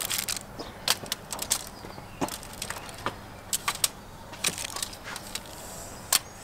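Aluminium foil crinkling in scattered sharp crackles and clicks as hands lay tomato slices and diced vegetables onto a foil-lined baking tray.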